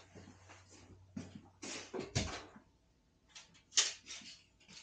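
Footsteps across a concrete shop floor, then a few knocks and rustles as tools are handled at a shelf, the loudest knock a little under four seconds in.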